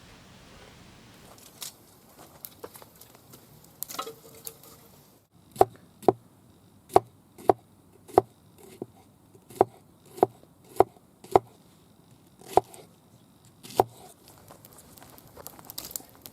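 A heavy folding knife chopping into wood: about a dozen sharp, separate knocks, each landing half a second to a second after the last, after some softer rustling and light knocks.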